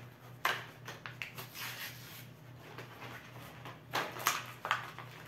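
A small box of chair-assembly screws being opened and handled by hand: scattered clicks and rustling, with a cluster of sharper clicks about four seconds in.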